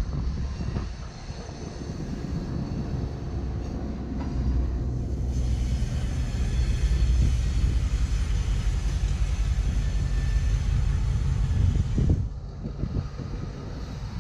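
Freight train moving along the track at a distance: a low, steady rumble that grows louder about five seconds in and drops away about twelve seconds in.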